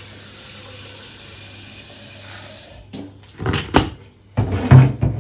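A kitchen tap running steadily, shut off about three seconds in, then several loud knocks and clatters of kitchen things being handled and set down.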